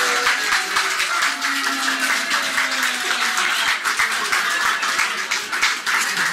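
A small crowd clapping and cheering, with voices raised over the clapping.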